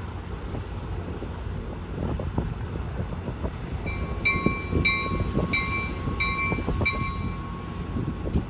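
Bilevel Amtrak passenger train rolling slowly along the platform track with a low steady rumble. From about four seconds in, a bell rings about five times, a little over half a second apart.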